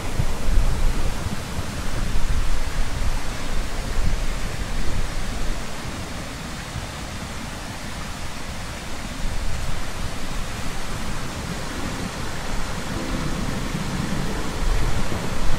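Steady rushing-water noise with a deep rumble underneath, rising and falling in loudness, and a louder surge near the end.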